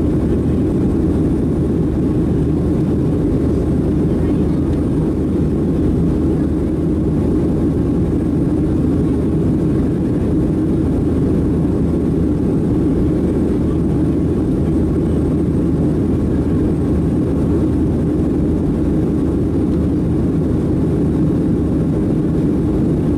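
Steady, low cabin noise of a Boeing 737-700 in flight, heard inside the cabin over the wing: its CFM56-7B engines running and air rushing past the fuselage in one even drone.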